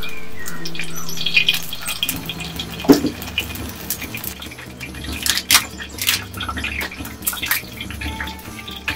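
Irregular crackling and popping from a steaming clay pot of hot liquid on a wood fire, with one louder knock about three seconds in. Background music plays at the start and drops away after about a second.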